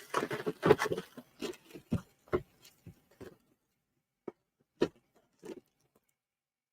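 Rustling and soft clicks of a model-kit box and its contents being handled and packed back in, thinning to a few separate light knocks after about two seconds.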